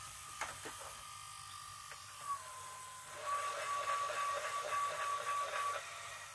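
LG EC290W VHS deck rewinding a head-cleaning cassette: a steady motor whine that dips in pitch about two seconds in, then comes back louder with a rushing hiss, and drops away near the end.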